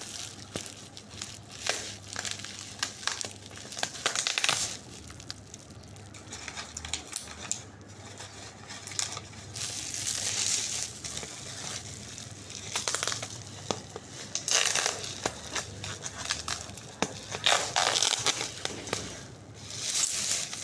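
Cardboard and paper packaging rustling and crinkling in irregular bursts as a box of books is unpacked by hand.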